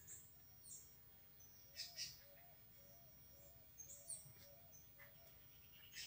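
Near quiet outdoors with faint birds calling: a few short, high chirps here and there and a quick run of about seven soft, lower notes in the middle.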